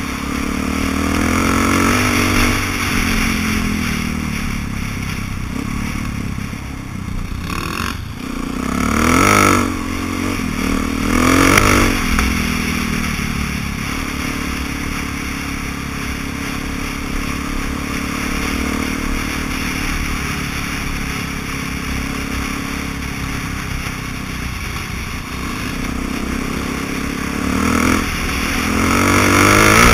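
Suzuki DR-Z400's single-cylinder four-stroke engine running under way on a dirt track, picked up at the rider's helmet. The revs rise and fall briefly twice, about nine and eleven seconds in, and climb again near the end.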